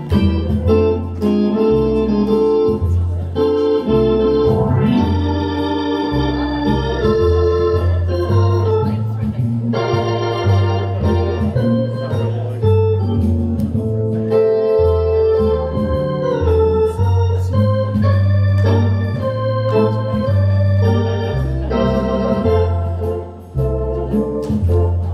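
Hammond organ playing live: held chords over a bass line that changes note every second or two, with a melody line moving above.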